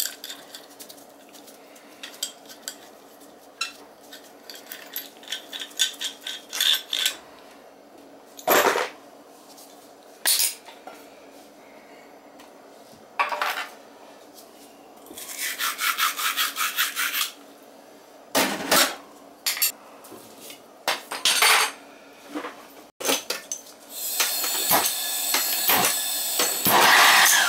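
Metal hand tools and brass fittings clanking and rattling as they are handled and sorted in a metal toolbox, with scattered sharp knocks and a short scrape partway through. In the last few seconds a steadier, louder noise takes over.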